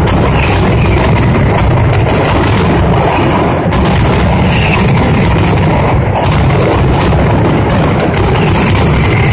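Mascletà firecrackers going off in a dense, unbroken barrage of bangs, so fast that they merge into one continuous loud rattle, with heavier booms among them.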